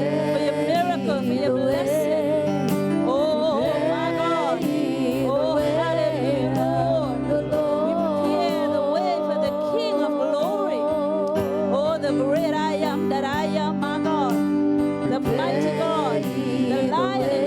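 Gospel worship music: voices singing a wavering, drawn-out melody over sustained keyboard chords and a steady band accompaniment.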